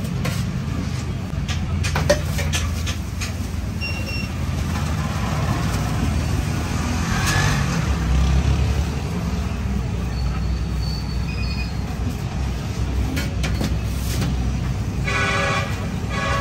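Busy street traffic noise: a steady low rumble of engines with scattered clatters and short horn toots. Near the end a held, pitched sound with several tones sets in.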